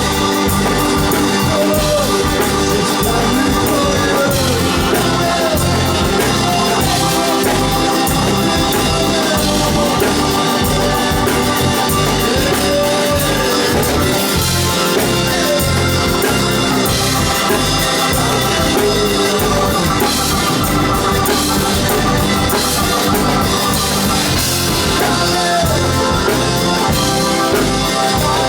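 Blues-rock band playing live: drums and organ, with gliding melodic lines over a steady beat.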